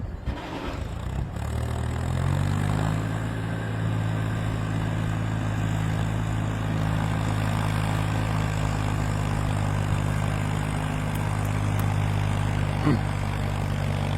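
An engine picking up speed about half a second in, then running steadily at an even pitch, with a short sharp sound near the end.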